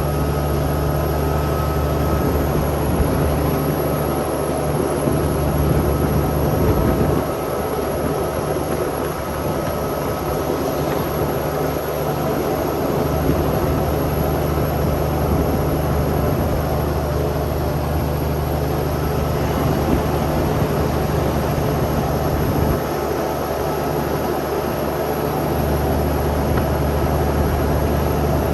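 Cummins X15 diesel in a Kenworth T800 tractor running steadily under load, a deep even drone heard from inside the cab. Its low note changes briefly about seven seconds in and again near the end.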